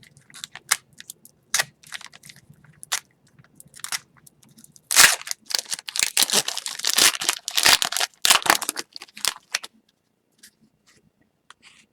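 Crinkling and tearing of a hockey card pack's wrapper as it is opened, with scattered light clicks and rustles at first and a dense stretch of crinkling in the middle that stops a couple of seconds before the end.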